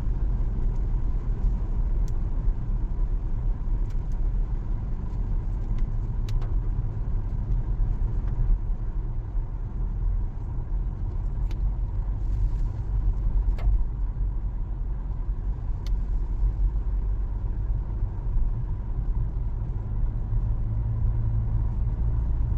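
Car running with a steady low rumble, heard from inside the cabin, with a few faint clicks here and there.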